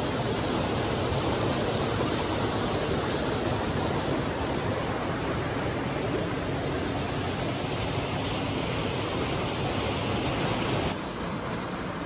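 Mountain stream rushing over and between granite boulders: a steady rush of water that drops a little about a second before the end.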